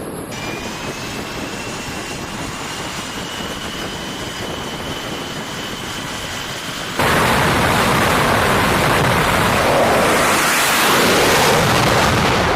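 Jet aircraft engines on a carrier flight deck: steady engine noise with a high whine that rises slowly in pitch, then about seven seconds in a much louder, full jet engine noise that starts abruptly.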